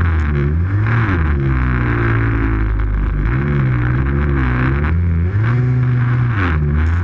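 Snowmobile engine revving up and down while the sled is ridden through deep powder snow. The pitch rises and falls again and again, about once every second or two.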